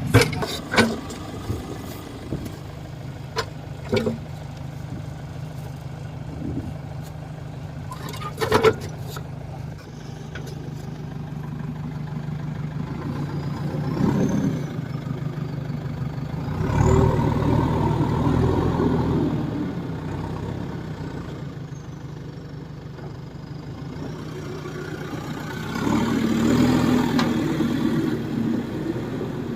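JCB 3DX backhoe loader's diesel engine running steadily, growing louder three times as it takes load, with a few sharp knocks in the first several seconds.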